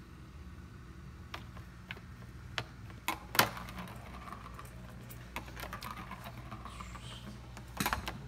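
Petstages Invironment Nature Track cat toy clicking and rattling as a kitten bats at it: scattered sharp clicks of the plastic ball and track, the loudest about three and a half seconds in and a quick run of clicks near the end.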